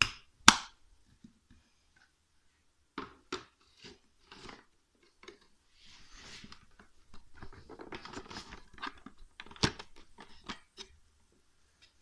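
Plastic filter frame and hinged filter cover of a Toshiba VC-222 vacuum cleaner being handled: sharp plastic clicks and knocks, two loud ones at the start and another about ten seconds in, with scraping and rubbing of the parts in between.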